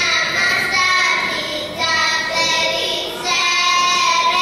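Young girls singing a Thessalian Greek folk song together in long held phrases, with two short breaks between lines.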